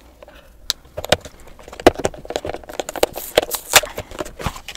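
Cardboard One Chip Challenge box being pried and torn open by hand: an irregular run of crackles, clicks and short tearing sounds from the paperboard, starting about a second in.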